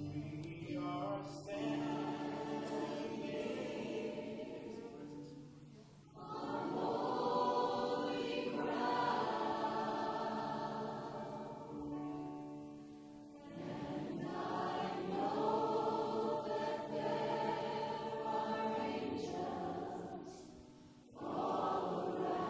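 Church congregation and worship team singing a slow worship song with instrumental backing, in long phrases that swell and fall away about every seven seconds.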